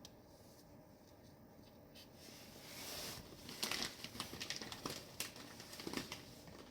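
Rustling and a quick run of small clicks and taps from hands handling parts, starting about two seconds in and lasting about four seconds.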